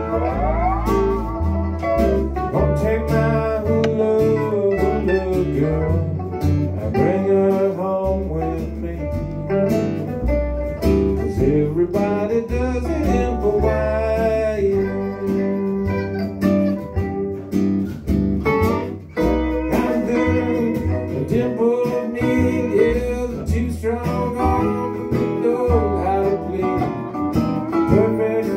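Live acoustic band playing an instrumental break: a steel guitar plays the lead with sliding notes, over strummed acoustic guitar and electric guitar.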